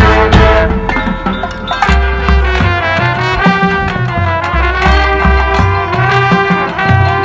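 High school marching band playing its field show: percussion strikes for the first couple of seconds, then the brass comes in with full sustained chords over a pulsing low bass line.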